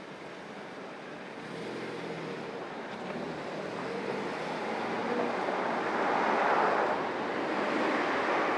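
Car and street traffic noise heard from a car-mounted microphone as the car pulls away from a traffic light. Engine and tyre noise swell steadily and are loudest about six to seven seconds in, with oncoming traffic passing.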